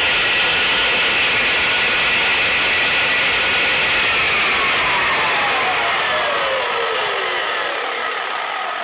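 Electric power tool's motor running at full speed with a steady whine, then switched off about four seconds in and winding down, its pitch falling steadily.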